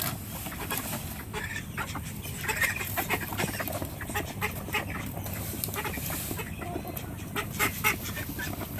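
Ducks quacking and chickens clucking at feeding time, over a constant run of small clicks and rustles.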